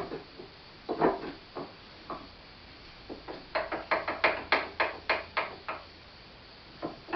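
Sharp knocks and taps on the parts of a Corona hand corn mill as it is being fitted together: a few single knocks, then a quick run of about ten taps, four or five a second.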